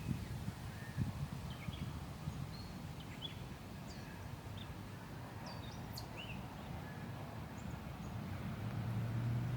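Scattered short bird chirps from several birds over a steady low rumble of outdoor background noise, with a low steady hum building near the end.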